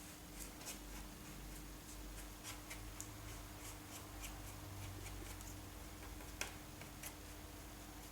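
Faint, irregular small clicks and scrapes of hands handling materials at a workbench, one sharper click about six and a half seconds in, over a steady low hum.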